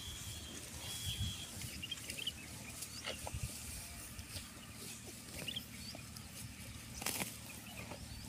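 Young water buffalo grazing on dry grass at close range: quiet tearing and chewing of grass and breathing at its muzzle. Faint high chirps in the background, and a sharp click about seven seconds in.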